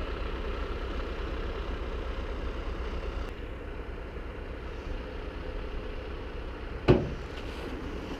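Heavy stocking truck's engine idling steadily with a low rumble, with one sharp knock about seven seconds in.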